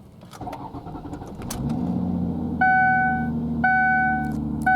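2005 Ford Taurus's 3.0-litre V6 cranking and catching, then idling steadily. From about halfway in, the car's two-tone warning chime sounds in repeated pulses about once a second over the idle.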